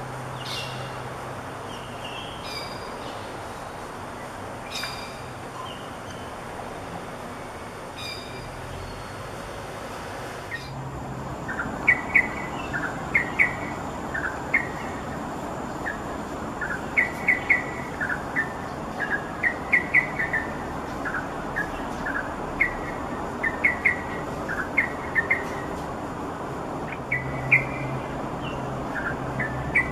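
Yellow-vented bulbul calling: a few sharp, high single calls, then after a cut a long run of short chirps in quick clusters of two to five notes, over a steady background hiss.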